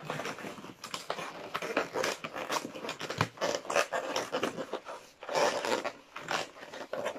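Long latex modelling balloon squeaking and rubbing as it is twisted and wrapped in the hands, in a quick run of irregular squeaks and scrapes.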